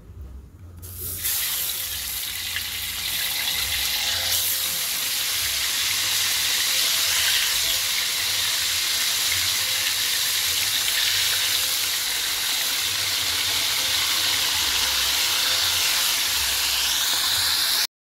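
A whole sea fish frying in hot oil in a wok: a loud, steady sizzle that starts abruptly about a second in as the fish goes into the oil, and cuts off suddenly near the end.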